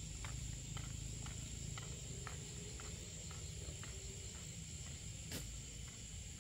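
Footsteps in sandals on a dirt path, about two a second, growing fainter until they fade out about four seconds in, over a steady high insect drone and a low rumble. A single sharp click comes about five seconds in.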